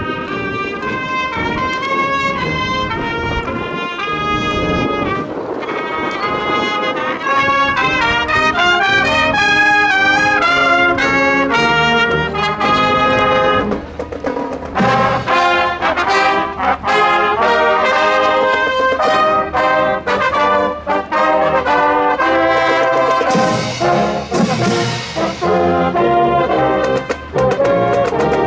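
High school marching band playing brass (trumpets, mellophones and sousaphones) on the march: held melody notes at first, then from about halfway short, punchy notes with percussion strikes and a cymbal-like crash.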